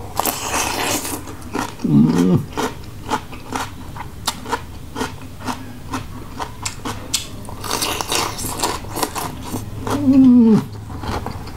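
A man biting into a crisp raw green vegetable dipped in sauce, with a crunch in the first second and another about eight seconds in, and chewing with lots of small wet clicks in between. Twice he lets out a short hum that falls in pitch.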